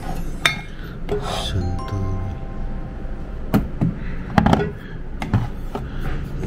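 Glass bottles knocking and clinking against one another as they are shifted by hand on a crowded shelf: a few sharp knocks, some with a brief glassy ring.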